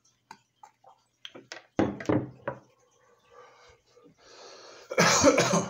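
A man coughing and blowing out smoke after a bong hit: three sharp coughs about two seconds in, a soft breathy exhale, then a loud, rough cough-exhale near the end.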